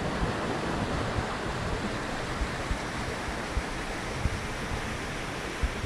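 A mountain stream rushing over rocks as a steady wash of water noise, with wind buffeting the microphone in short low thumps.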